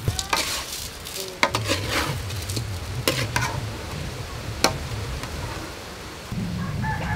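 A metal spatula stirring and turning whole sweet potatoes in a steel wok: scraping, with about four sharp clinks of metal against the pan. The potatoes are being turned to check whether they are cooked.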